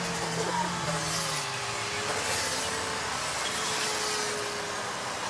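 Small detail chainsaws used for carving, running steadily with a droning engine note; a lower note fades out about a second and a half in while a higher one carries on.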